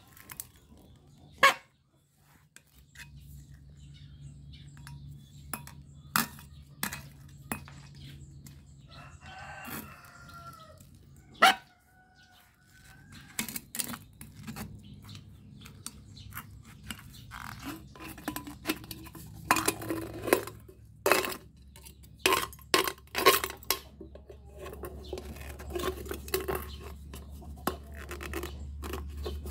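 Sharp metallic clinks, knocks and scrapes as a steel rod and pliers work at an empty, punctured aerosol spray paint can, in irregular strikes that bunch together in the last third. A rooster crows once about ten seconds in.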